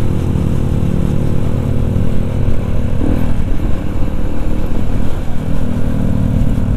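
Yamaha WR155R's single-cylinder engine running steadily while the motorcycle is ridden along the road, its note changing briefly about three seconds in.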